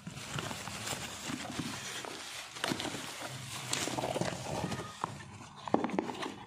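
Plastic packaging, bubble wrap and clear plastic film, crinkling and rustling as it is pulled off products by hand, with irregular crackles and small knocks of cardboard and boxes being handled.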